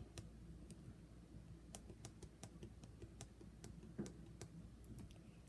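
Faint, irregular light tapping: two or three small clicks a second, with a slightly heavier tap about four seconds in.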